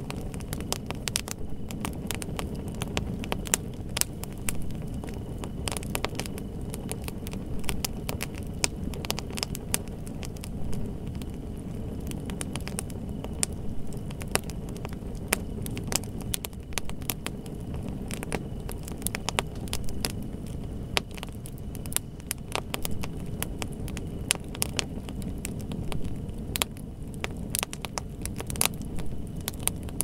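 Wood fire crackling: frequent, irregular sharp pops and snaps over a steady low rumble.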